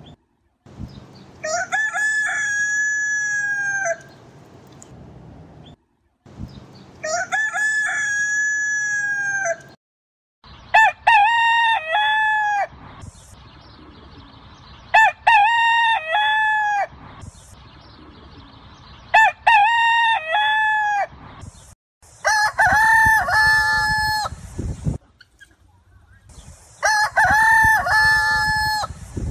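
Village roosters (ayam kampung) crowing over and over: about seven long cock-a-doodle-doo crows, each two to three seconds, a few seconds apart.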